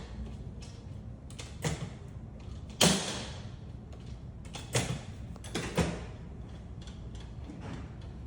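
Chiropractic drop table knocking and clunking about five times, the loudest knock about three seconds in with a short ring after it.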